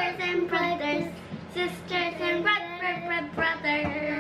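Children singing together, their voices holding sung notes.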